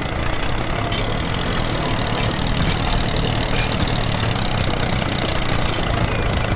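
Tractor engine running steadily with a low, even drone.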